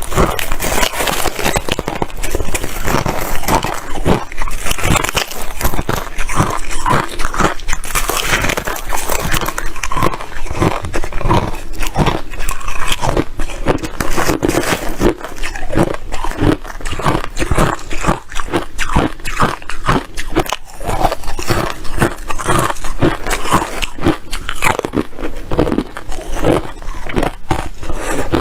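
Ice chips being bitten and chewed, a steady run of loud crunches at about two to three a second.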